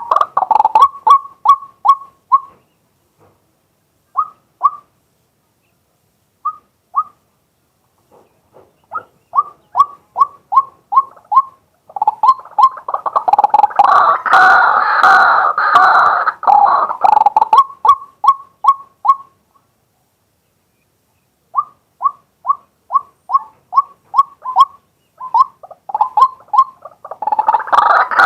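Male white-breasted waterhen calling: runs of short repeated notes at about three or four a second, broken by silent pauses of a second or two, swelling about halfway through into a dense, loud stretch of calling and again at the end.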